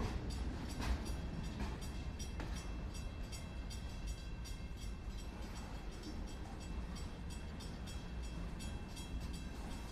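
Freight train of empty centerbeam flatcars rolling past at close range: a steady rumble of steel wheels on rail, with a few sharp clanks in the first two and a half seconds.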